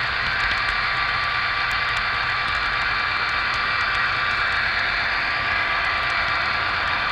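HO scale model train running along its track, heard from a camera riding on it: a steady whirring hiss of the small motor and wheels on the rails, with faint scattered clicks.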